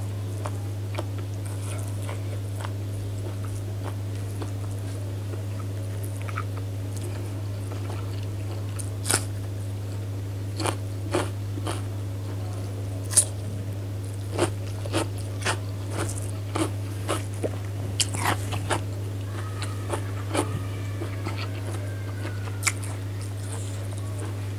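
Close-up eating sounds: irregular crisp bites and wet chewing that begin about a third of the way in and thin out near the end, over a steady low hum.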